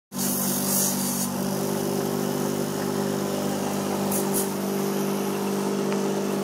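Electric bench grinder running with a steady motor hum, with short hissing scrapes near the start and about four seconds in.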